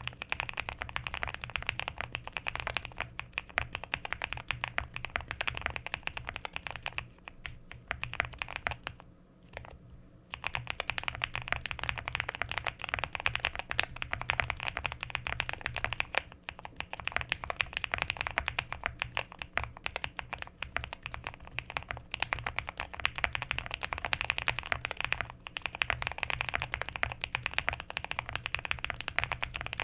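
Continuous typing on a QK65 mechanical keyboard: frankenswitches (Nixdork top, Boba LT stem, Lilac bottom) in a POM plate with all foams fitted, Owlstab stabilisers and Geekark PBT keycaps. It is a dense run of keystroke clacks with a short lull about nine seconds in.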